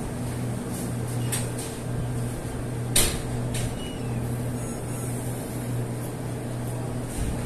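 Steady low machine hum, with one sharp knock about three seconds in and a few lighter clicks around it.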